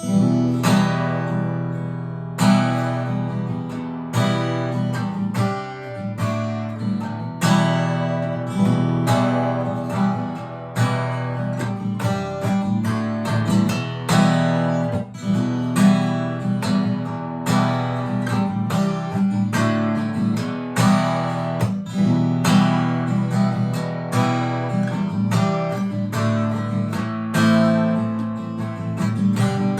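Acoustic guitar music, strummed chords in a steady rhythm.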